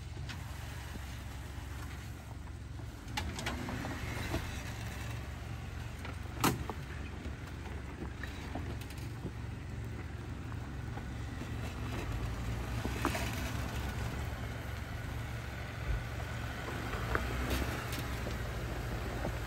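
Jeep Wrangler in four-wheel low crawling down a rocky rutted trail: a steady low engine rumble with tyres grinding over loose rock, punctuated by a few sharp knocks, the loudest about six seconds in. It grows louder as the Jeep comes closer near the end.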